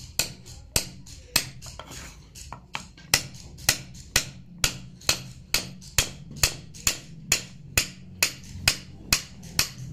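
Hand-held carving chisel being tapped with a mallet as it cuts a relief pattern into a wooden board, about two sharp knocks a second, a little quicker in the second half.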